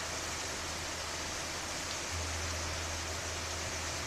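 Steady rain, an even rushing hiss with no separate drops or events. Beneath it runs a low steady hum that gets louder about two seconds in.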